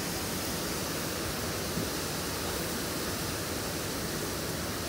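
Steady rushing of a high-pressure water release gushing from an outlet pipe and spraying into the river.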